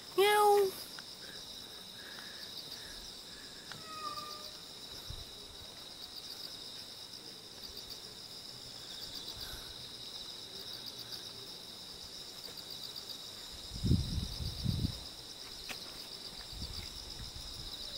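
Night insects chirring steadily and high-pitched. A short, loud meow-like call rises and falls right at the start, and a fainter falling call comes about four seconds in. A few low thuds come around fourteen seconds.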